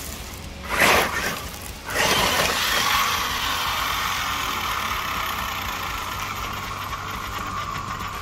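Losi Super Baja Rey 2.0 RC truck tumbling onto its roof on gravel, with a hard crash about a second in and another just after two seconds. Its electric drivetrain then whines steadily, slowly fading, as it lies upside down.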